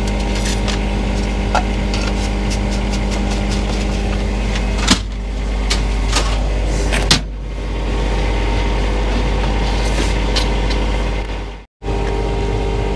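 Steady machine hum, like an engine running, under scattered small clicks and clinks of welding rods being handled, with two sharper knocks about five and seven seconds in. The sound drops out for a moment near the end.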